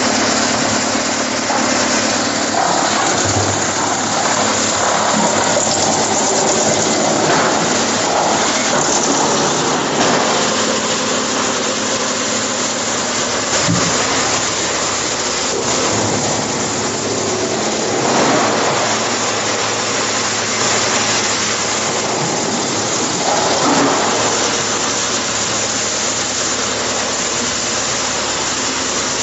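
Drum wood chipper running and chipping logs and branches: a loud, steady noise over a low machine hum, swelling now and then as wood feeds through.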